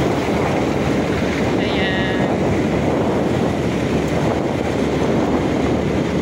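Steady rush of wind over the microphone of a moving motorcycle, with the motorcycle running underneath.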